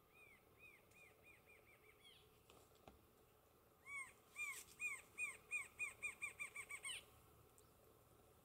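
Rufous-winged Antshrike singing. A faint series of repeated notes speeds up over the first two seconds, then a louder series begins about four seconds in, quickens, and stops abruptly about three seconds later.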